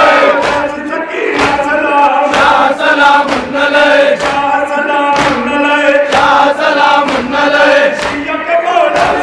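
Large crowd of men chanting a Shia noha (lament) together in unison, with sharp rhythmic beats about once a second, typical of matam, hands striking the chest in time with the chant.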